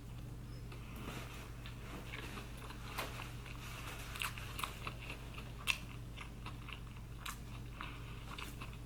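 Close-miked chewing of a mouthful of Beyond Meat burger: irregular soft clicks and crunches, a few louder ones about three to six seconds in.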